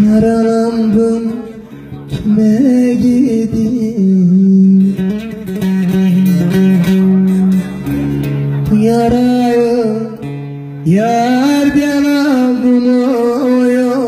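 Man singing a Turkish bozlak in long, held notes that waver and slide in pitch, accompanied by a plucked bağlama (saz). A new phrase starts with an upward slide about three seconds before the end.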